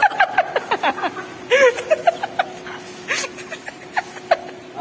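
Stifled giggling and snickering in many short bursts, over a faint steady hum.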